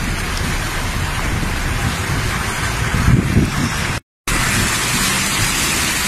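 Heavy rain falling with a steady hiss and a low rumble underneath. The sound cuts out completely for a moment about four seconds in, then the rain carries on.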